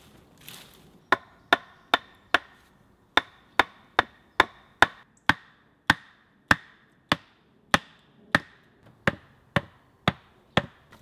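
Hammer driving into a wooden door post: about twenty sharp blows, roughly two a second with one short pause, each with a brief ringing note. The blows begin about a second in.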